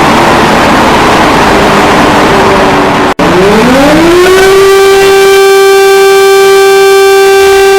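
A loud, harsh noise for about three seconds cuts out abruptly. Then an emergency alarm siren tone winds up in pitch over about a second and holds one steady, buzzy note.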